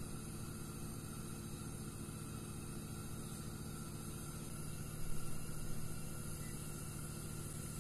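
Steady hiss with a low hum from a frying pan of oil on the stove, then louder sizzling about five seconds in as a breaded potato roll is laid into the hot oil.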